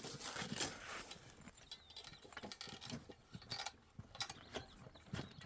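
Irregular knocks, clicks and scrapes of hand building work with cement blocks and tools.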